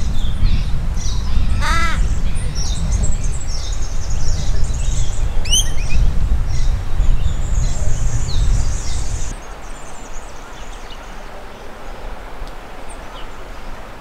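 A raven gives a single harsh caw about two seconds in, with smaller birds chirping and whistling high above it. A loud low rumbling noise runs underneath and drops away abruptly about nine seconds in.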